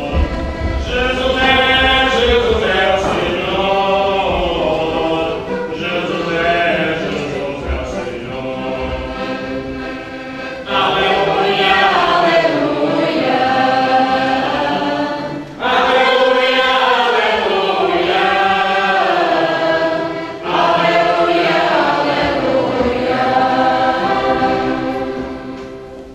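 A folk-group choir singing a hymn during Mass in a church, in several long phrases, with the sound echoing in the church. New phrases start about 11, 16 and 21 seconds in, and the singing fades out near the end.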